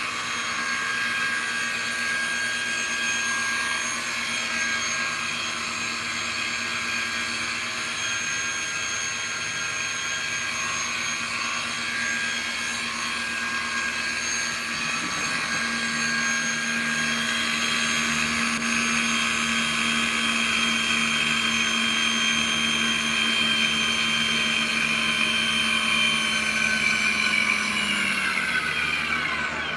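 RC airplane brushless outrunner motor spinning with a steady high whine; near the end it winds down, its pitch falling away.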